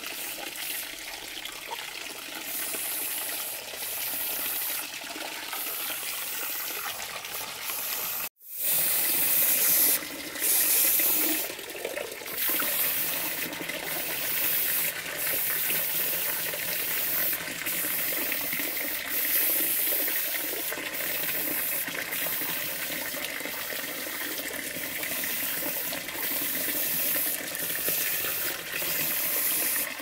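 Water running and splashing in a steady rush. The sound cuts out for a moment about eight seconds in, then comes back louder for a few seconds.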